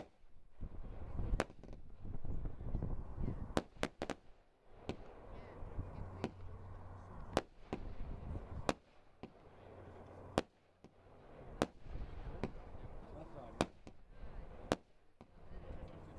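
Epic Fireworks Steam Roller, a 98-shot single-ignition firework cake, firing a barrage. Sharp bangs come every second or so, irregularly spaced, over a low rumble.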